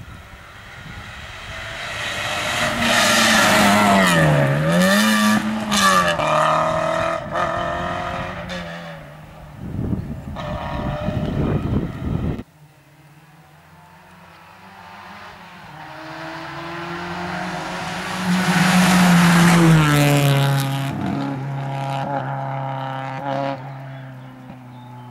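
Two rally cars at full throttle passing one after the other. The first one's revs dip and climb again through a gear change before its sound cuts off suddenly about halfway through; the second, a first-generation Renault Twingo rally car, builds up, is loudest going past, then drops in pitch and fades away.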